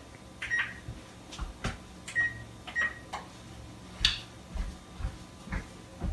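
Oven control panel beeping, a few short single-pitch beeps as the keys are pressed to set a 350-degree preheat, among sharp clicks and knocks, the loudest about four seconds in.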